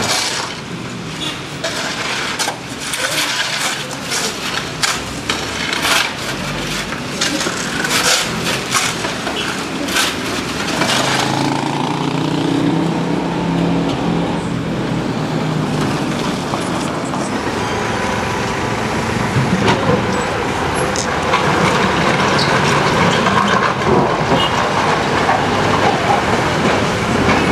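Street clean-up after heavy rain. For the first ten seconds or so, shovels scrape and clank irregularly on mud and stones. After that a steady engine hum from heavy machinery, a backhoe loader and dump trucks, takes over.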